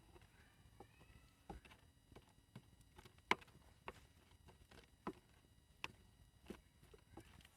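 Irregular sharp clicks and knocks, roughly one a second, over near silence; the loudest comes about a third of the way in.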